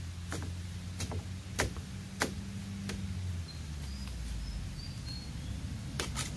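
A long-handled tool striking at the base of a bamboo clump while digging out a bamboo shoot. Five sharp knocks come about 0.6 s apart, then two more close together near the end. A few short high bird chirps come in between.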